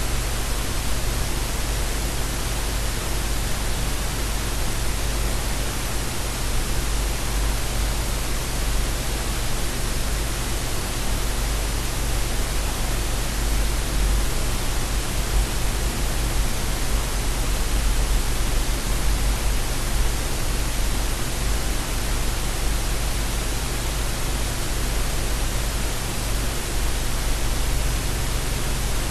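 Steady, unchanging hiss of even noise across the whole range, with a steady low hum underneath.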